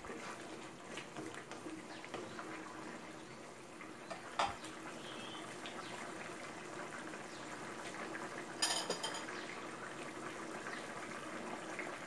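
Green curry simmering in an aluminium pot, bubbling with a steady crackle of small pops, while a wooden spatula stirs it. A sharp knock against the pot about four seconds in and a louder clatter just before nine seconds.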